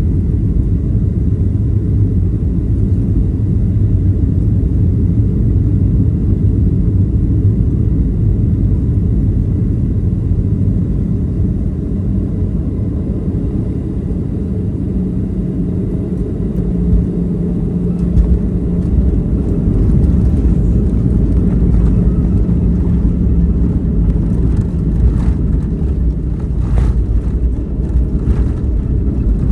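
Boeing 737-700 cabin noise during landing: a loud, steady low rumble of engines and airflow. From around the middle it turns heavier and rattlier, with frequent short knocks and bumps as the airliner comes down and rolls on the runway.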